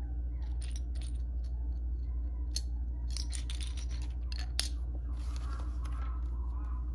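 Loose plastic Lego bricks clicking and clattering as a hand picks through a pile of pieces on a wooden floor, then the paper page of the instruction booklet rustles as it is turned near the end. A steady low hum sits underneath.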